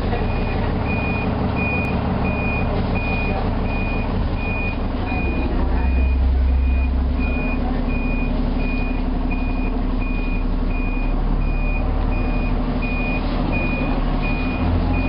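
Alexander Dennis Enviro400 double-decker bus reversing: its reversing alarm beeps steadily, about once every three-quarters of a second, over the diesel engine's drone, which swells briefly about six seconds in.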